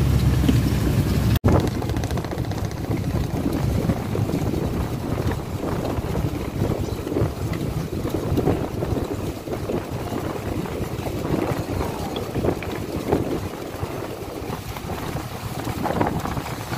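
Wind buffeting the microphone over water splashing and rushing along the hull of a moving fishing boat, with a very brief break in the sound about a second and a half in.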